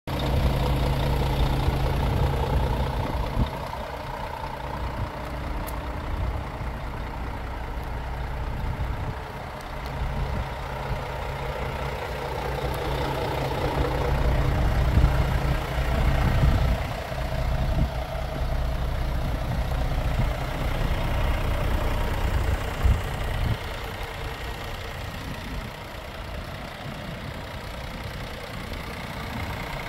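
Scania S500 truck's 13-litre inline-six diesel engine idling steadily, louder in the first few seconds and again around the middle.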